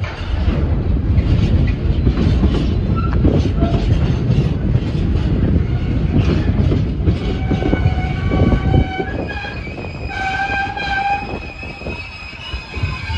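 Intermodal container freight train passing close by: a heavy rumble and the clack of wagon wheels over the rail joints, easing after about nine seconds. High-pitched squealing tones come and go over the second half.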